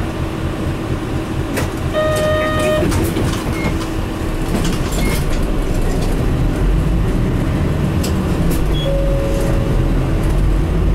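Interior running sound of an Isuzu Cubic city bus on the move: a steady engine and drivetrain drone with a constant hum, and loose rattles from the cabin. A short beep sounds about two seconds in, as the drone grows a little louder, and a fainter tone comes near the end.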